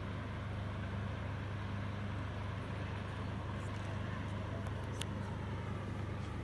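Steady low engine drone with a haze of noise over it, unchanging in pitch and level, and a single sharp click about five seconds in.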